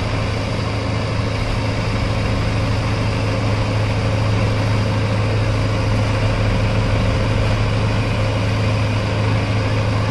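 Diesel engines of a JCB 3DX backhoe loader and a Mahindra tractor running steadily together, a continuous low drone with a strong hum.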